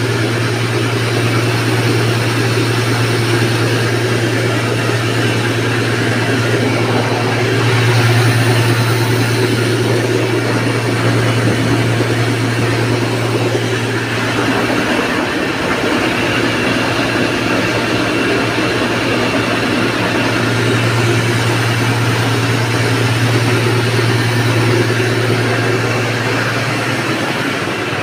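Electric stone flour mill (atta chakki) running, a loud steady machine hum over a rushing grinding noise. The hum wavers briefly about halfway through.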